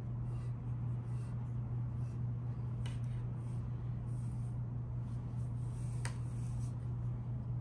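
Soft scratchy strokes of a wide brush dabbing black marking mix onto a glazed ceramic teapot, over a steady low hum. Two light clicks sound, about three and six seconds in.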